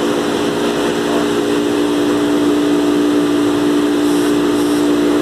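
Industrial stone-slab polishing machine running: a steady hum with a strong tone and overtones over a constant hiss.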